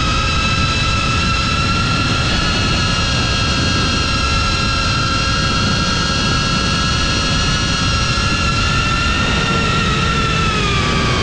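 FPV drone's motors and propellers whining at a steady high pitch over a low rushing noise, the pitch falling near the end.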